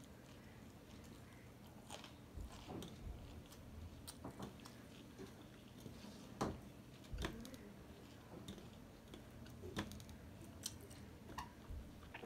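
Close-miked chewing and mouth sounds of a person eating rice by hand, with scattered soft, wet clicks and smacks every second or so.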